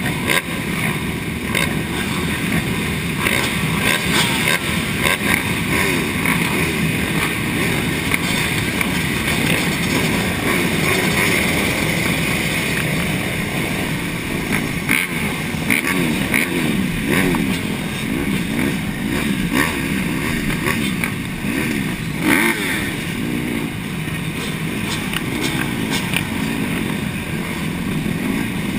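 A large pack of motocross dirt bikes running together, many engines revving and idling at once in overlapping rising and falling pitches as they roll along slowly, with the camera bike's own engine close by.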